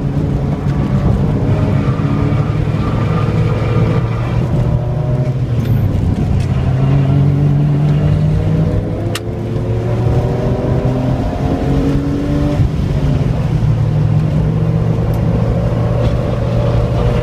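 2003 BMW M3's 3.2-litre inline-six heard from inside the cabin, pulling hard on track. Its pitch climbs under acceleration, drops briefly about nine seconds in, then climbs again.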